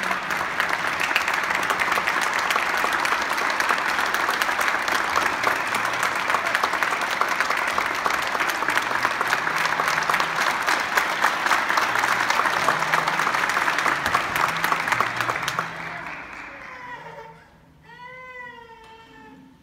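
Audience applauding in a concert hall, a dense steady clapping that dies away about sixteen seconds in. As it fades, a high voice calls out briefly, its pitch bending up and down.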